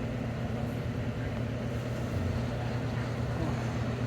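Zoomobile tour tram running steadily, a constant low drone from its motor and the ride.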